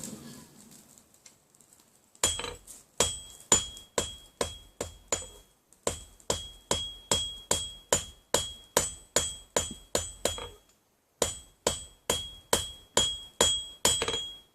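Blacksmith's hammer striking iron on an anvil in a steady rhythm, a little over two ringing blows a second, each with a bright metallic ring. The hammering starts about two seconds in and breaks off briefly near the end before resuming.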